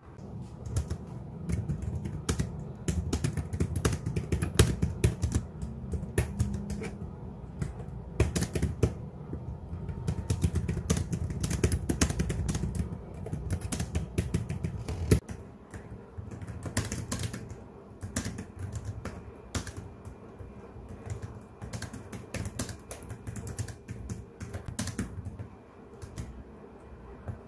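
Typing on a slim white low-profile keyboard: quick runs of light key clicks with short pauses between them.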